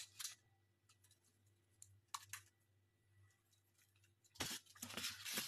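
Faint scattered clicks from handling a retractable tape measure, with quiet gaps between them. About four and a half seconds in, a longer, louder rustling scrape begins.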